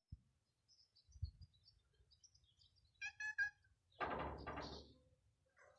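Small birds chirping faintly, with a dull bump about a second in and three short pitched calls around three seconds in. About four seconds in comes the loudest sound, brief and full-bodied, fading within a second.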